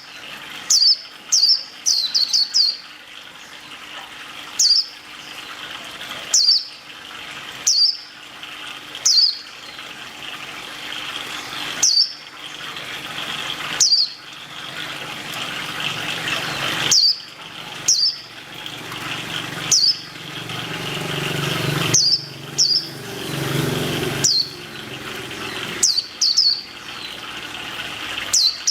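A bird giving short, high chirps that fall in pitch, singly or in quick runs of two to four, every second or two.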